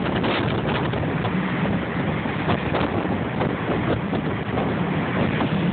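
Blizzard wind blowing hard across the microphone, a loud, continuous rush of noise with constant small gusty buffets.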